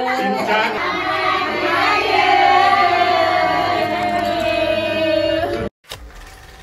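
A group of people calling out together in loud, overlapping voices, cheering a festive greeting. The sound cuts off abruptly near the end, leaving only faint sound.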